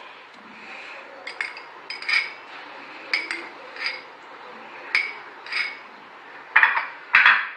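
Steel spoon clinking against a ceramic bowl while marinated chicken strips are stirred, a light clink every half second to second, then two louder clatters near the end.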